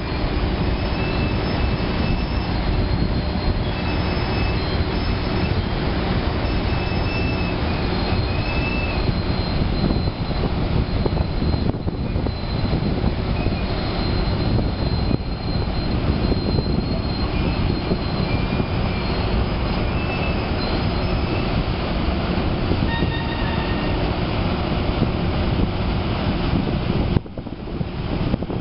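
Harbour tug's diesel engines running close by, a steady deep rumble mixed with the churn of its propeller wash. The sound dips briefly near the end.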